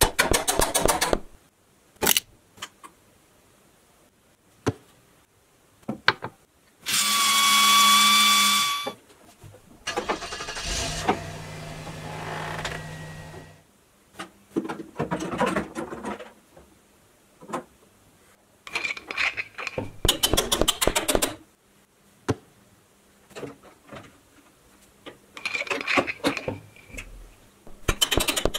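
Tool sound effects: several bursts of rapid clicking like a drill or ratchet, one louder ringing tone, and a steady low motor hum, separated by quiet gaps, while a toy hammer works on a plastic toy tractor.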